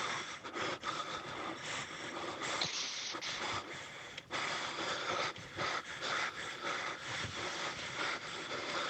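A person breathing heavily: long, noisy breaths in and out, broken by brief pauses.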